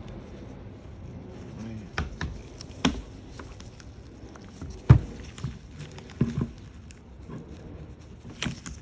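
Scattered clicks and knocks of the hard plastic case parts of a Snap-on cordless ratchet being handled and worked apart, with light handling rustle between them. The loudest is a sharp knock about five seconds in.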